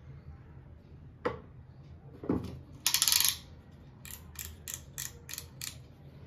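Snap-off utility knife having its blade slid out: a run of about seven sharp ratchet clicks, about four a second. Before them come a knock and a short, loud scraping rustle as the knife is picked up.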